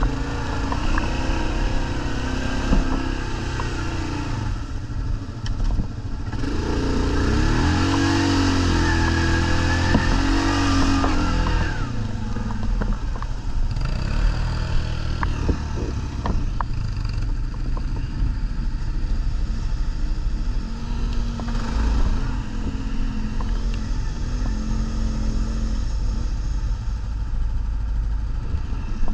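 ATV engines running and revving off-road, the pitch rising and falling. One revs hard for several seconds about a quarter of the way in, with scattered clicks and knocks later on.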